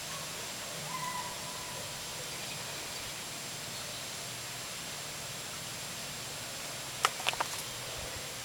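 Outdoor ambience with a steady hiss. A faint short bird call comes about a second in, and a quick cluster of three or four sharp clicks comes about seven seconds in.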